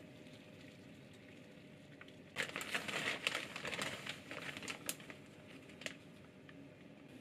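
Plastic bag of dried bonito flakes (katsuobushi) crinkling and rustling as a hand handles it and reaches in. It starts a little over two seconds in and lasts about two and a half seconds.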